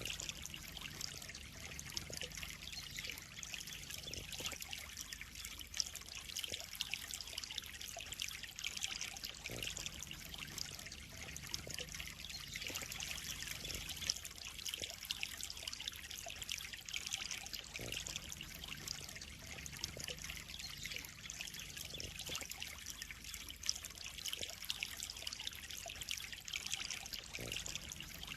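Water trickling and splashing steadily into a koi pond, a continuous bright patter with many small splashes.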